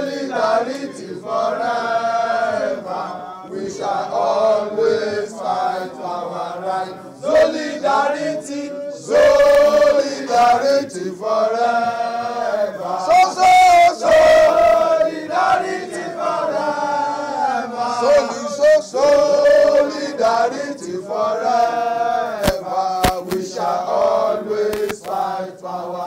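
A group of men chanting a protest song together, sung lines with short breaks between them.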